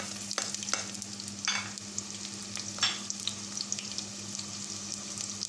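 Freshly added sliced onions sizzling in hot oil in a steel pot, a steady hiss scattered with small crackles. Louder pops come about one and a half and about three seconds in, over a steady low hum.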